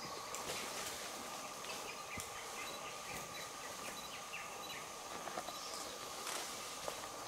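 Equatorial forest ambience: a steady insect drone with scattered short chirps and a few faint clicks.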